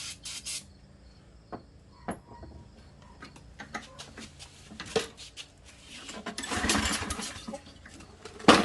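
Walk-behind lawn mower engine: a faint low hum dies away early, then scattered clicks and knocks, and two spells of loud, rough engine noise, one about six seconds in and one starting near the end.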